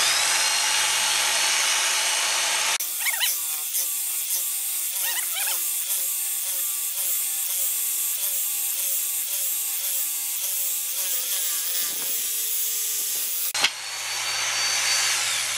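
Electric jigsaw spinning up, then sawing a curved cut through a pine board, its pitch wavering in a regular rhythm as it cuts. Near the end the blade is lifted out of the finished cut and the motor winds down.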